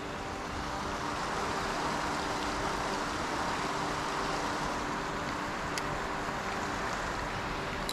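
Steady rush of water pouring over a river weir into the pool below, an even noise at a constant level.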